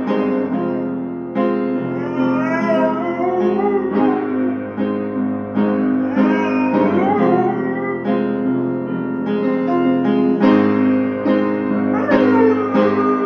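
A song with strummed acoustic guitar is playing. Over it come wavering, sliding vocal lines, and near the end a long howl from a Portuguese Water Dog starts, sliding down and then holding, as he sings along.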